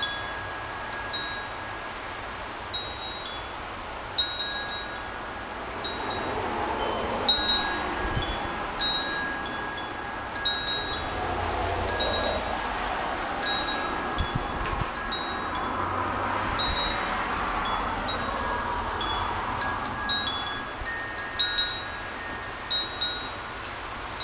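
Metal tube wind chime ringing in strong wind, struck irregularly several times a second, each strike leaving clear high tones hanging. Gusts of wind rush underneath, swelling in the middle, and buffet the microphone.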